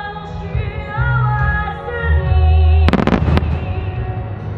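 Slow music with a sustained, wavering melody over a deep bass. About three seconds in, a quick cluster of sharp firework bangs and crackles cuts through for about half a second.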